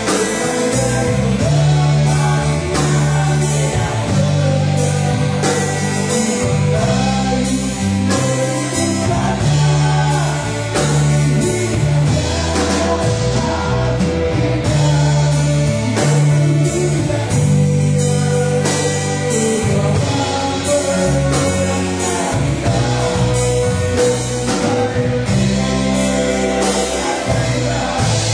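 Live rock band playing loudly, a male lead singer over electric bass, guitar and a drum kit with a steady beat.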